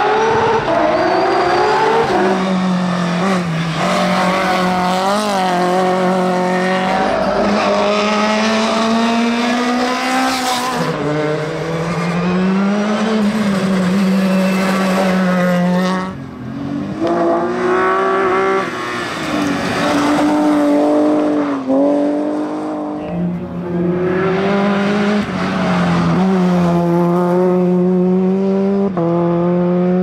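Racing car engines working hard up a hillclimb course, each pitch climbing under full throttle and dropping back at every gear change. A Porsche 911 race car's flat-six comes first; a second car takes over after a short lull, and the last car is a Renault Clio rally car.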